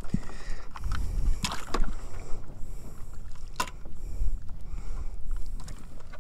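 Handling noises as a red snapper is held on fish grips and laid across a measuring board in a kayak: a few sharp knocks and taps over a low rumble.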